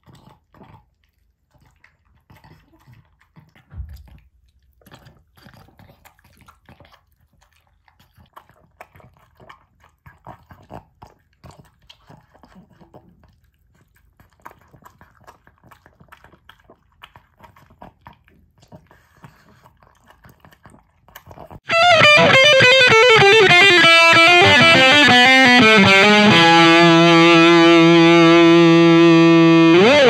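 Pug eating soft food from a raised bowl: faint, scattered chewing smacks, licks and small clicks. Near the end a loud distorted guitar-like music sting comes in suddenly, slides down in pitch, holds a steady chord, then cuts off.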